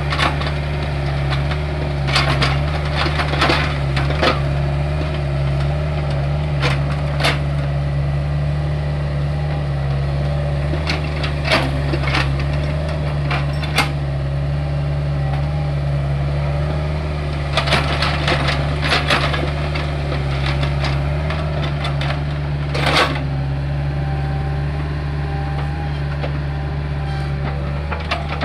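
Hitachi excavator's diesel engine running steadily under load, with scattered sharp cracks and crunches as the bucket works dry, hard soil.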